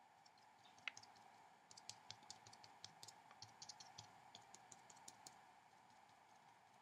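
Faint, irregular light taps of a watercolour brush dabbing dots onto paper, clustered from about a second in until about five seconds in, over a faint steady hum.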